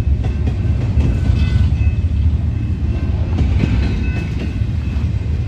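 Long double-stack intermodal freight train passing close by: a steady rumble of steel wheels on the rails with the clatter of the cars rolling over the track.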